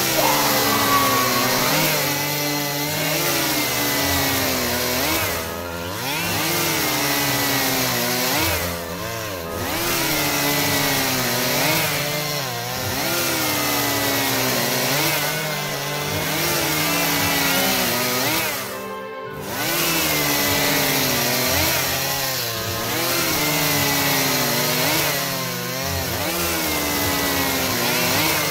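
Electric drill boring into a silver dental crown held in a vise, the motor's whine dipping and rising again about every three seconds.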